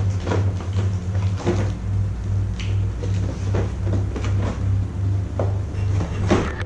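Background music with a steady pulsing bass beat, with irregular light knocks and taps from a large cardboard Play-Doh box being handled.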